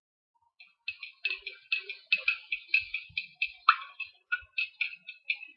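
Metal spoon clinking against the inside of a ceramic mug while stirring, a quick run of bright clinks at about four a second, starting just under a second in.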